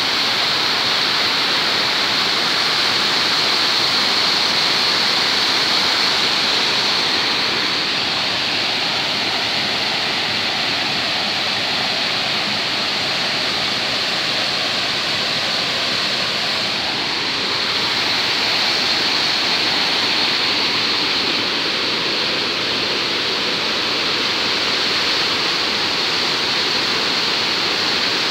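A fast stream of white water rushing down a stepped channel, heard as a loud, steady rush.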